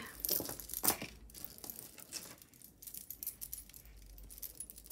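Tangled costume jewelry being handled: light clinks and rattles of metal chains and pendants knocking together, a few sharper clinks in the first second, then scattered faint clicks.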